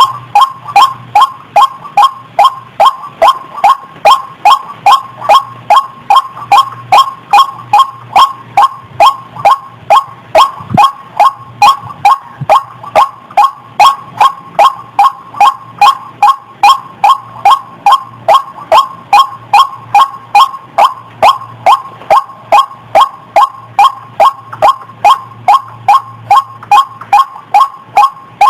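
White-breasted waterhen calls, as used in a bird-trapping lure recording: loud, short, repeated notes in an even, unbroken rhythm of about two to three a second.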